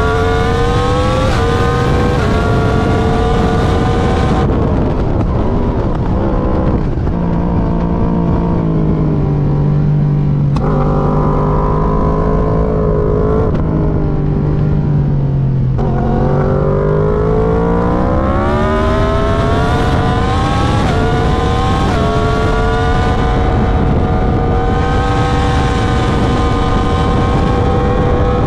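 Yamaha R1M's crossplane inline-four engine, loud, heard from on board at track speed. The revs climb through quick upshifts, drop with a run of downshifts, and hold low for several seconds. About halfway through they climb again through several more upshifts and hold high near the end.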